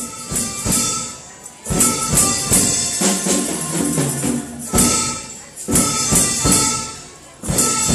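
Music with a steady beat and bright, high percussion strokes.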